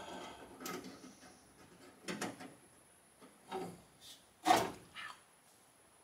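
Hand tools and small hardware being handled during work on a car door's lock mechanism: about six separate short clicks and knocks, the loudest about four and a half seconds in.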